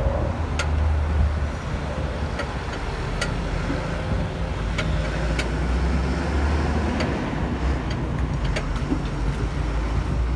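Steady low rumble of an idling vehicle engine and traffic, with occasional light sharp clicks.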